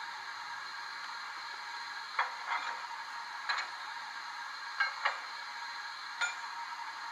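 Hornby OO gauge Bittern's Zimo sound decoder playing stationary steam locomotive sounds through its small speaker: a steady hiss, with a handful of short, irregular clicks from about two seconds in.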